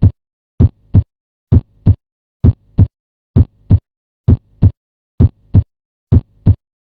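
Normal heart sounds as heard through a stethoscope: repeated lub-dub pairs, S1 from the mitral and tricuspid valves closing, then S2 from the aortic and pulmonary valves closing. About one pair a second, with a short gap within each pair and a longer pause before the next.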